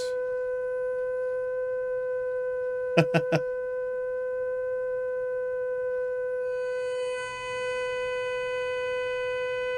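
A steady, loud tone of about 500 Hz from a speaker fed by a signal generator and amplifier, set to a wine glass's resonant frequency to shake it toward breaking. From about six and a half seconds in, more high overtones creep into the tone as the volume is turned up. Three quick clicks come about three seconds in.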